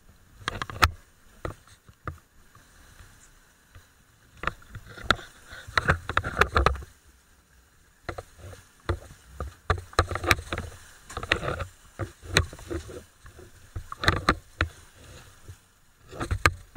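Dive boat under way through choppy sea: an irregular run of knocks, thumps and splashy bursts as the hull meets the waves, with wind and water rushing past.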